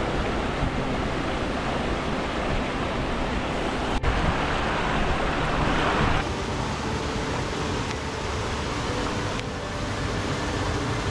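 Creek water running and splashing over rocks, a steady rushing noise, with a brighter hiss between about four and six seconds in.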